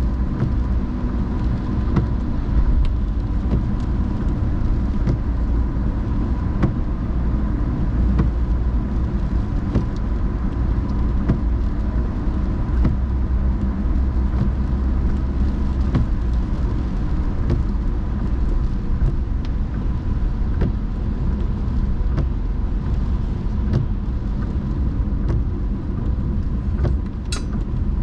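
A car driving in the rain, with steady low road and engine rumble and scattered light ticks. A faint steady tone runs underneath, and a few sharper clicks come near the end.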